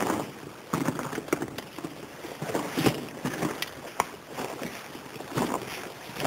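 Footsteps on the floor of a brick-lined railway tunnel, irregular steps with scuffs and clicks.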